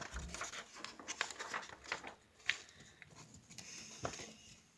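Paper rustling with scattered light taps and clicks as the pages of a picture book are handled and turned.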